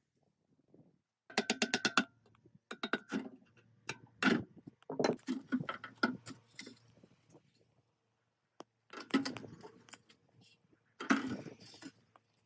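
Hand tools clinking and knocking on metal generator parts during disassembly, with a quick even run of clicks about a second in and scattered sharp knocks, some with a short metallic ring.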